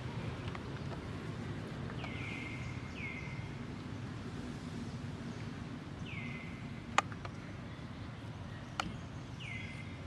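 An animal giving four short high calls, each sliding down in pitch and then holding briefly, over a steady low rumble, with two sharp clicks in the second half.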